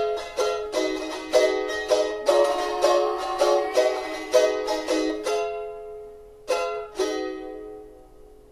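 Instrumental break in a song: a plucked string instrument picks a steady run of notes, then thins out after about five seconds to two last notes that ring and fade away.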